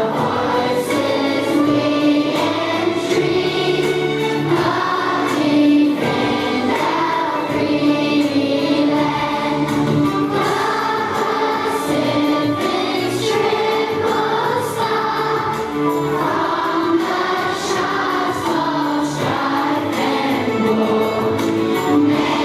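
Music: a large group of schoolchildren singing a song together as a choir.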